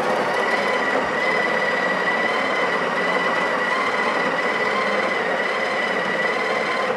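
Breville Barista Express's built-in conical burr grinder running steadily, grinding coffee beans into the portafilter, with a steady whine over the grinding noise, then cutting off abruptly.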